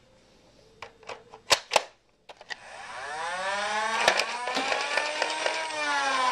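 Stock Nerf Rapidstrike CS18's flywheel motors, on four C-cells, spinning up with a steeply rising whine that levels off and sags slightly near the end, with a few sharp clacks over it. Before the spin-up come several clicks and knocks from handling the blaster after a dart jam.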